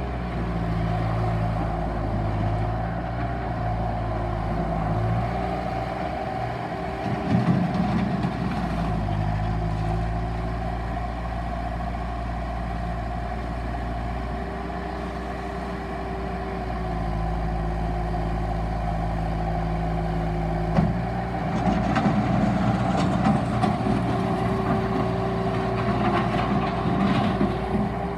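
Bobcat 863 skid steer loader's diesel engine running, its pitch shifting a few times, with louder, rougher stretches about 7 seconds in and from about 21 seconds to near the end.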